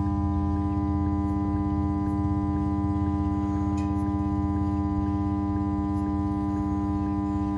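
Tractor diesel engine idling steadily: an even, unchanging drone with a fast regular pulse.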